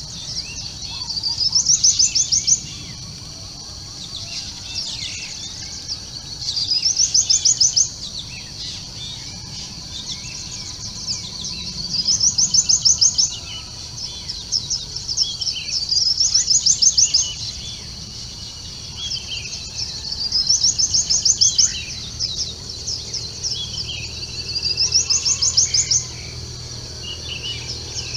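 A bird repeats a song phrase about every four to five seconds: a quick run of high notes that climbs in pitch. Other birds give softer, scattered calls in between, over a faint low rumble.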